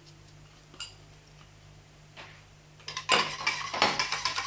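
A few faint taps, then from about three seconds in a wire whisk beating rapidly against the sides of a metal saucepan of liquid custard mixture.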